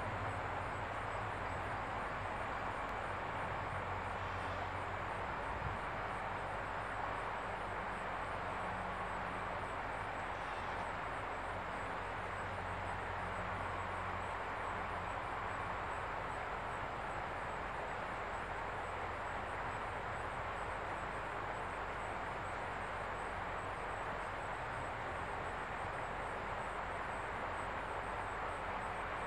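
Steady outdoor background noise: an even hiss, with a faint low hum that fades in and out, and a faint high ticking repeating evenly throughout.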